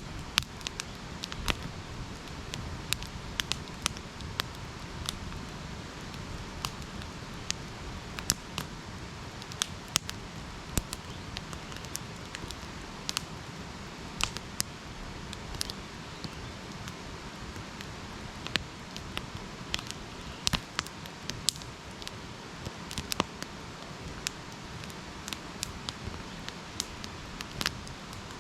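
Wood campfire crackling: irregular sharp pops and snaps, several a second at times, over a steady low rush of burning.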